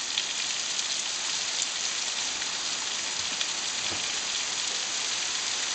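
Heavy rain falling steadily on a brick patio and garden plants, an even hiss of drops.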